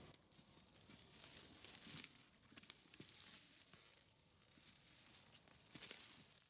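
Faint rustling and crackling of dry leaf litter and twigs under footsteps and bicycle tyres as a bike is pushed on foot through forest undergrowth, with scattered small snaps.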